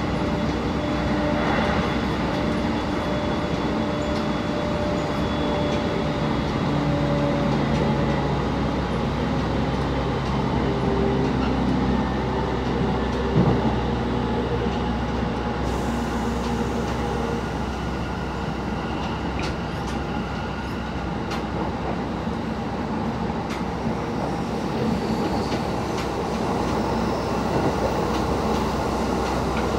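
Train running along the rails, heard from inside the passenger car: a steady rumble of wheels on rails with a low hum whose tones shift now and then, and one sharp clack about thirteen seconds in.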